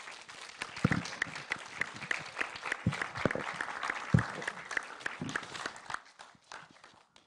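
Audience applauding at the end of a lecture, dying away near the end, with a few low thumps mixed in.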